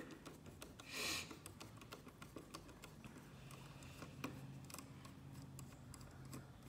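Faint small clicks and ticks of plastic as hands work at the seam of a router's plastic case, prying it apart, with a brief rustle about a second in.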